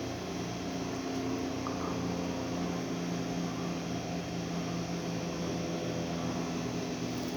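Steady mechanical hum with several low tones held at one pitch over a bed of hiss.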